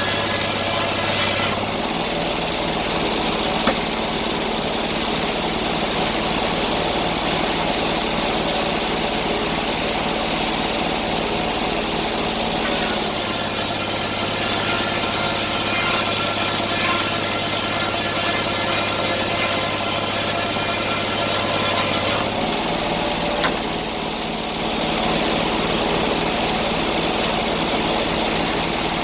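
Sawmill's engine running steadily, its note shifting about two seconds in, again near the middle, and once more about three quarters of the way through.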